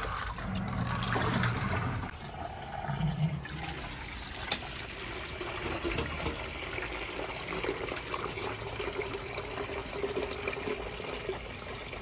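Wash water from a Rovsun portable washing machine's drain hose pouring and splashing into a plastic bucket as the machine drains. A faint steady hum runs under the splashing.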